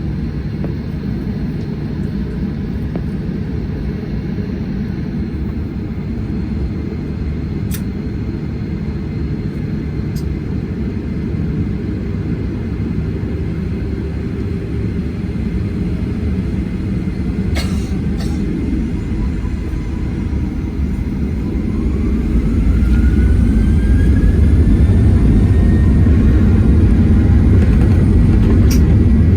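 Steady low rumble of a Boeing 737-900 heard from inside the cabin, with a few sharp clicks. About twenty seconds in, a rising engine whine comes in and the rumble grows louder.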